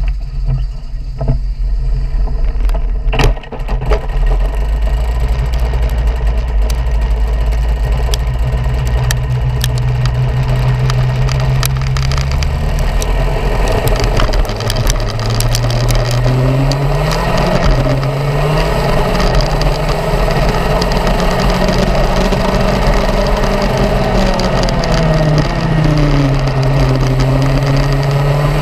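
Racing kart engine heard onboard, running at low, steady revs for the first dozen seconds, then revving up and down again and again as the kart laps the circuit. A single sharp knock comes about three seconds in.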